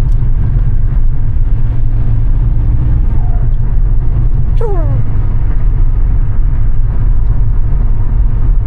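Steady low grumbling road and drivetrain noise inside a moving VW Jetta's cabin, which the driver takes to be tire noise. A short tone falls in pitch about halfway through.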